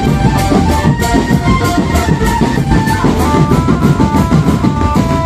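Marching drum band playing: a steady beat of snare, tenor and bass drums under a stepping melody line of held notes.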